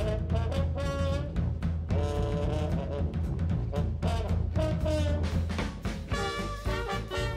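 Background music with brass instruments and drums, playing continuously.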